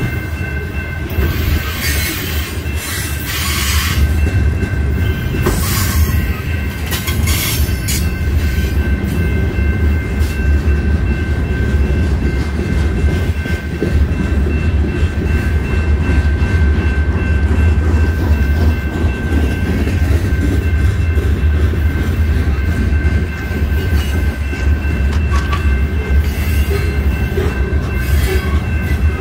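CN freight train rolling past: a steady, heavy rumble of wheels on rail, with a thin high squeal of wheel flanges against the rail held steady over it. Sharp clacks of wheels over rail joints come through in the first several seconds.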